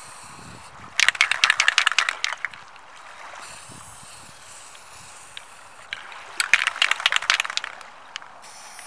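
Aerosol spray paint can being shaken, the mixing ball rattling quickly inside it, in two bursts of about a second and a half: one about a second in and another about six seconds in.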